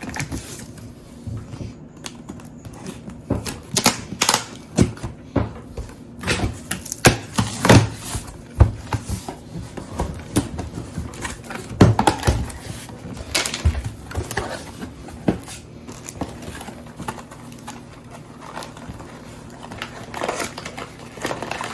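Cardboard boxes and packaging being handled and opened: irregular knocks, scrapes and crinkling rustles as parts are lifted out.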